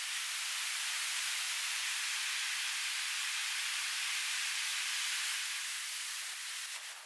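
River water rushing over rocks in shallow rapids, a steady hiss that eases a little near the end.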